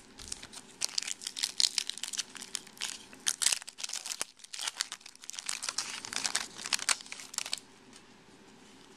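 Foil wrapper of a trading-card pack crinkling and tearing as it is opened, a dense run of sharp crackles that stops near the end.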